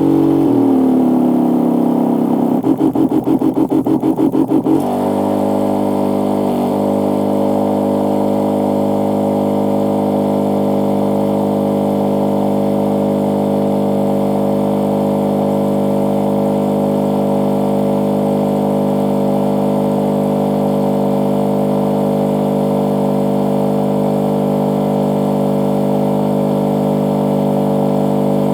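Battery-powered backpack sprayer's electric pump switching on and running. For the first five seconds or so it wavers and pulses unevenly, then it settles into a steady, even hum.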